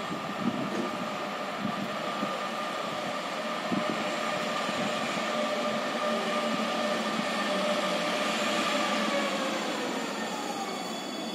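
A train running past, a steady rumble with a held whine whose pitch falls near the end, and a few short knocks from the wheels.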